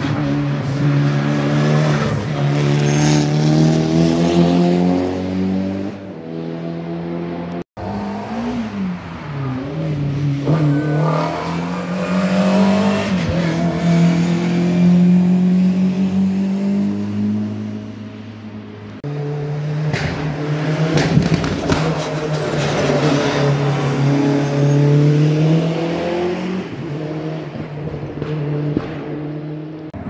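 Porsche 911 RSR race car's air-cooled flat-six held at raised revs, the pitch stepping up and down between steady engine speeds. After a brief drop-out a few seconds in, a race car is heard accelerating up the hill road, then the flat-six is again held at revs.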